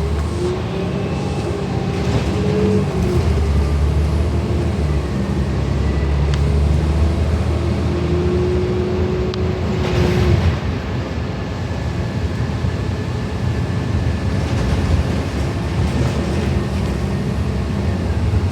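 City transit bus heard from inside: the engine and drivetrain run with a steady low rumble, and a whine rises and holds twice as the bus pulls away and gathers speed.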